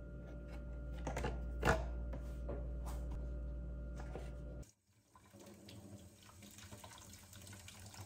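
A few light knocks as plums are set into a plastic colander, over a low steady hum. About halfway through the sound cuts, and a kitchen tap starts running as the fruit is rinsed under it in a stainless steel sink.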